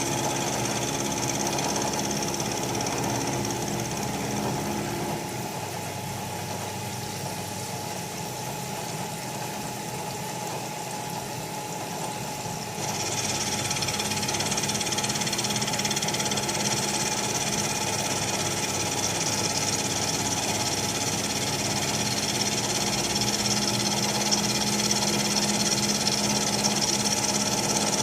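Bridgeport Series 2 Interact 4 milling machine running with a steady mechanical hum made of several held tones. The lower tones fall away about five seconds in, and about thirteen seconds in a high hiss sets in suddenly and the sound grows louder.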